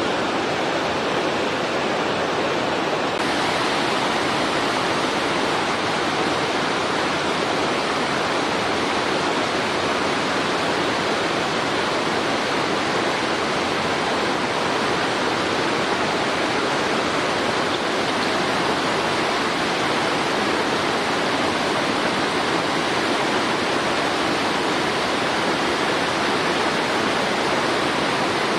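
Steady, even rushing noise like running water, with the hiss growing slightly brighter about three seconds in.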